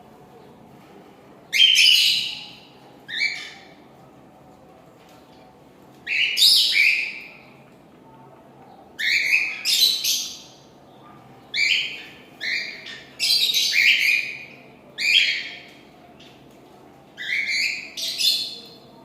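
Cockatiel singing: about a dozen short, falling chirps and whistled notes, singly or in quick runs of two or three, every second or two.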